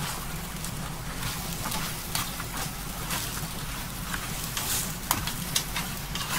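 Cabbage leaves and frankfurter pieces sizzling in a frying pan as they are stir-fried with chopsticks, with scattered sharp clicks as the food is turned.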